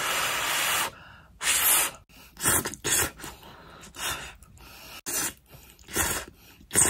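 Ramen noodles being slurped: one long slurp of about a second, then a run of short slurps.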